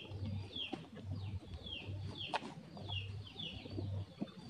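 Chickens in a coop calling: a run of short, high, falling chirps, about two a second.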